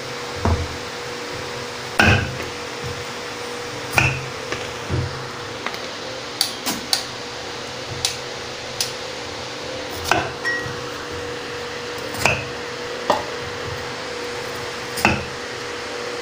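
Kitchen knife knocking and clicking against a plastic cutting board while cutting a bitter gourd: sharp, irregular knocks every second or two, a few in a quick run, over a steady hum.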